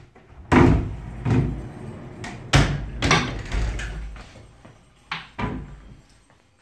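Wardrobe door being opened and handled: a run of sharp knocks and clatters in the first three seconds, then two more knocks about five seconds in.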